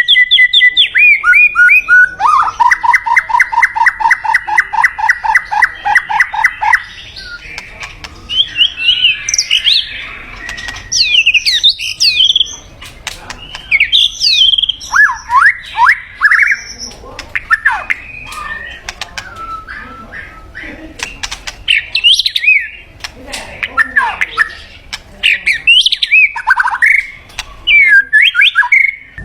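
White-rumped shama singing. It opens with a fast stuttering trill of about seven notes a second lasting several seconds, then goes on in a long string of varied, rich whistled phrases separated by short pauses.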